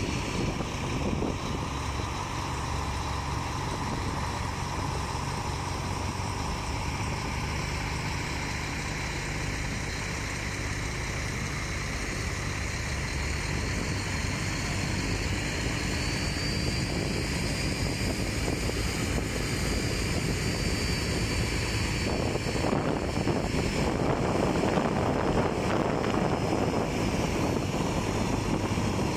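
A boat's engine running steadily under a rush of water and wind, with no break; the rushing grows louder for the last several seconds.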